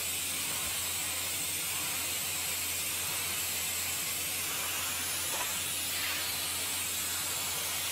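TIG welding arc on carbon steel pipe, giving a steady, even hiss with a low hum underneath during the second pass.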